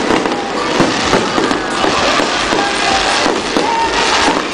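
Fireworks going off in quick succession: many overlapping bangs and crackles.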